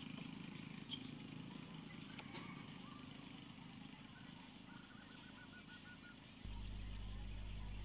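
Soft knife cuts slicing a cucumber by hand, faint under a low steady drone, with a short run of bird chirps about five seconds in. A louder steady low hum starts abruptly about six and a half seconds in.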